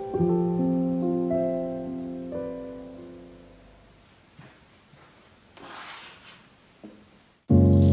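Soft background piano music with slow held notes that fades away over a few seconds, followed by a quiet lull with a faint rustle. A new, much louder piece of music starts abruptly near the end.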